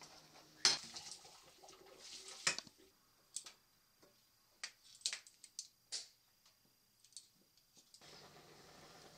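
Kitchen clatter: a utensil knocks and scrapes against a saucepan and plates. There are two sharper knocks in the first few seconds, then lighter scattered clicks, and a low steady hum comes in near the end.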